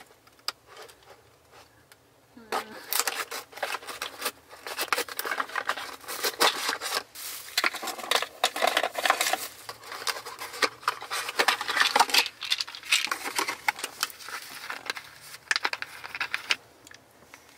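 Cardboard medicine box being opened and its packaging handled: a quick, irregular stream of crackling, scratching and crinkling that starts about two seconds in and dies down near the end.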